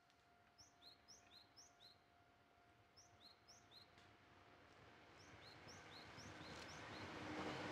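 A small bird calls in short rising chirps, several in quick runs, over faint background noise. From about four seconds in, the rushing noise of an approaching electric commuter train builds steadily and becomes the loudest sound, with a low steady tone joining near the end.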